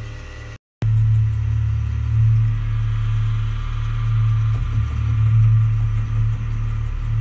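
Low, steady suspense drone from a TV show's music bed, heard through a television speaker, swelling slowly; it drops out for a moment just under a second in.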